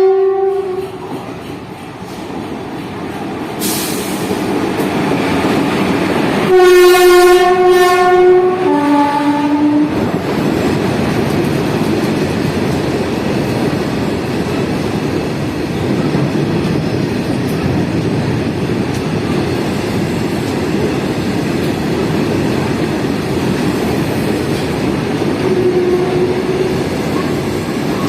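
Goods train hauled by twin locomotives: a horn blast cuts off just after the start, then the train approaches. About 6.5 s in comes a loud, long horn blast that steps down to a lower note, and after that the train passes with a steady rumble of wheels on rail. A short faint horn note sounds near the end.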